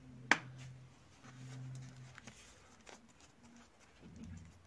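A sharp knock about a third of a second in as a glass bowl is set down on a table, then a few faint clicks from handling a plastic glue bottle, over a low hum that comes and goes.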